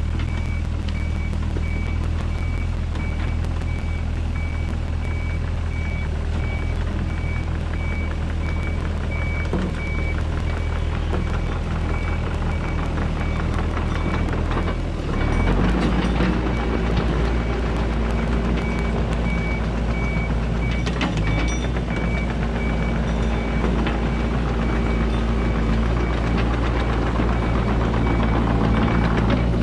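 Mini excavator's diesel engine running steadily while its travel alarm beeps at a regular pace as the machine tracks along with the blade down, pushing dirt to grade. The beeping pauses briefly in the middle, and the engine sound changes and gets a little louder about halfway through.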